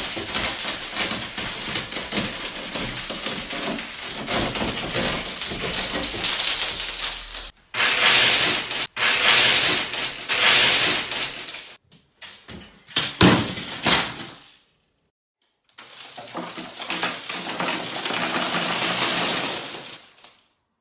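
Something brittle breaking and crunching with a crackling, glassy sound, in several spliced clips that cut off suddenly, with a short silence about two-thirds of the way through.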